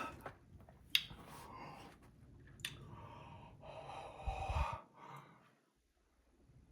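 A woman breathing heavily in and out, three or four long breaths, with a couple of small sharp clicks between them. She is breathing through the burn of very spicy Nashville hot chicken.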